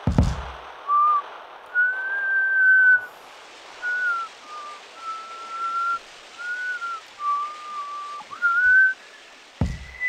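A man whistling a slow tune of about eight notes, some long and held, the last one rising. There are low thumps at the start and just before the end.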